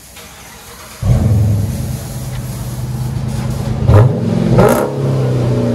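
Dodge Charger R/T's 5.7L Hemi V8 heard at the tailpipes through a dual exhaust with Flowmaster FlowFX mufflers and the rear resonators deleted. It fires up about a second in, settles into a loud idle, and is given a couple of short revs about three seconds later.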